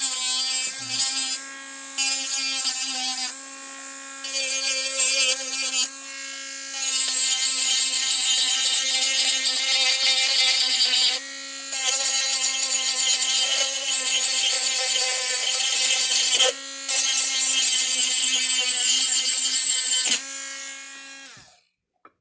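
Dremel rotary tool running at a steady high whine while grinding down the end of a plastic air-horn bell, the grinding hiss swelling and easing as the bit bites and lifts off. Near the end it is switched off and winds down.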